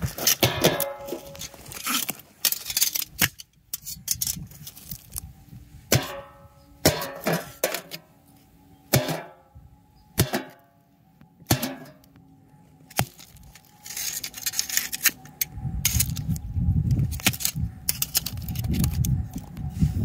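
Metal pieces clinking and knocking, a series of separate sharp strikes with short ringing. From about three-quarters of the way in, a loud low rumble builds underneath.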